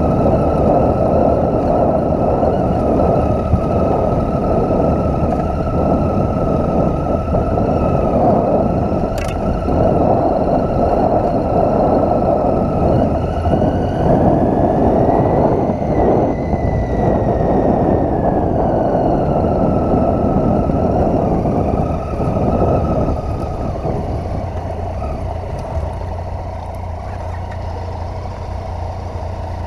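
Triumph Tiger 800's three-cylinder engine running under way on a gravel track, its pitch rising about halfway through and falling back, then easing off and getting quieter near the end. A single sharp click about nine seconds in.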